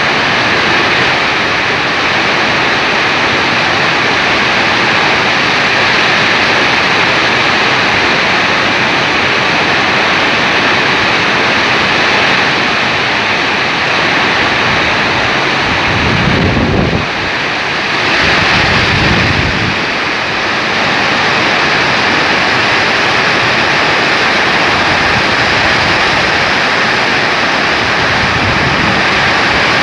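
Heavy rain pouring down in a steady hiss during a windstorm. Two brief low rumbles of wind buffeting the microphone come a little past the middle.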